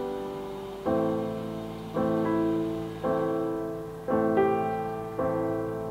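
Slow solo piano music, with a note or chord struck about once a second and each fading away before the next.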